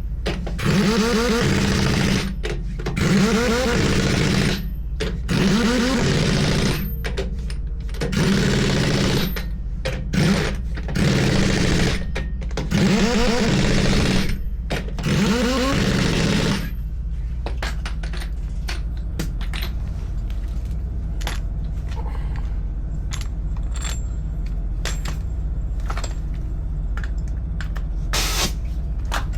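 Pneumatic impact wrench run in repeated bursts of a second or two on wheel nuts during a truck tyre change, its pitch rising and falling within each burst. After about sixteen seconds the bursts stop, leaving a steady low hum with scattered light clicks and clinks.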